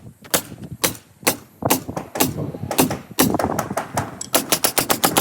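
Nail gun firing: sharp shots about two a second, then a quick run of several near the end.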